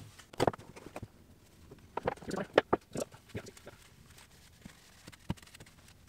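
Irregular knocks and clicks of objects being handled on a wooden workbench: a small metal can and the rag being picked up and set down. They come in a cluster about two to three seconds in, with a single sharp click a little past five seconds.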